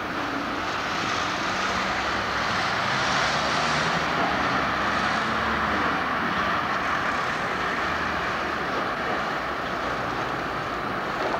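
City street traffic: cars and trams passing close by, a steady traffic noise with engine hum.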